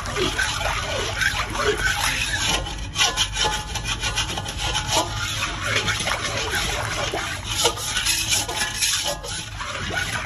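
A metal spoon scraping and stirring a thickening milk-and-grated-carrot mixture in a steel kadai, with rapid, uneven rasping strokes against the pan. A steady low rumble runs underneath.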